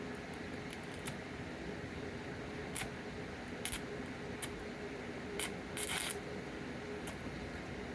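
Short, sharp clicks and light scrapes of small parts being handled, about eight in all, with one longer scrape or hiss about six seconds in, over a steady background hum.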